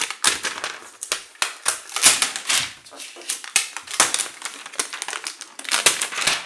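Thin clear plastic protective film crackling and crinkling as it is picked at and peeled off the aluminium back of a Microsoft Surface Pro 4 tablet: a dense, irregular run of sharp crackles and snaps.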